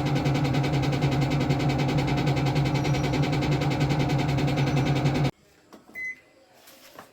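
Aqua washing machine running with a loud, steady mechanical hum that cuts off abruptly about five seconds in: the noise it makes when spinning. A short high beep follows about a second later.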